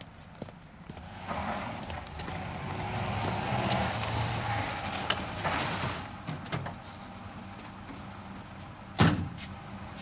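A car passing on the street rises and fades over a few seconds. Near the end a vehicle door slams shut once, loudly.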